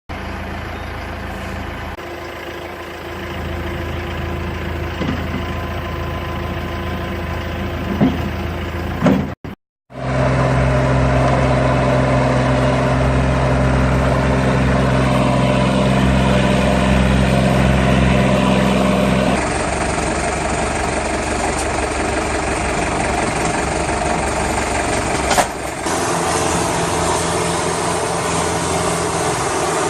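Tractor engine running steadily, heard in segments that change abruptly. There is a short dropout about ten seconds in, and brief knocks near eight seconds and again near twenty-five seconds.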